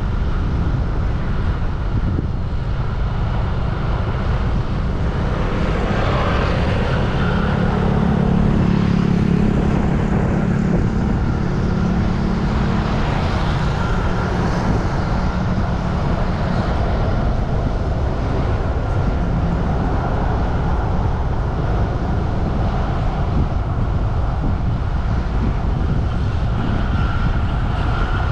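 Road traffic with a steady low rumble. A vehicle engine hum grows louder and passes, loudest about seven to twelve seconds in, then fades back into the traffic.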